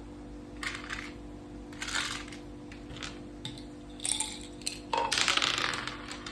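Pieces and dice clacking on a mak saka (Thai backgammon) board: a few separate sharp clicks, then a longer rattle about five seconds in.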